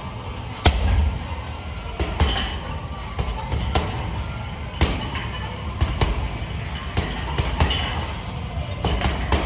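Gloved punches landing on a hanging heavy bag: about ten heavy thuds at an uneven pace.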